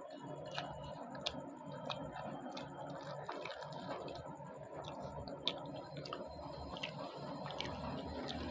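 A person eating luchi with cholar dal by hand: scattered small sharp clicks and soft wet squishes of chewing and handling the food, over a steady background hum.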